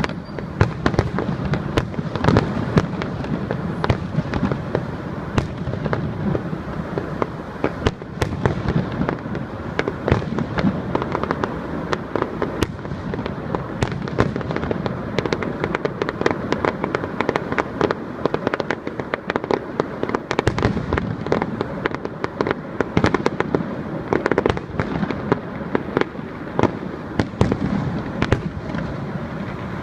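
Fireworks display: a continuous barrage of bangs and crackles, many each second, over a low rumbling haze.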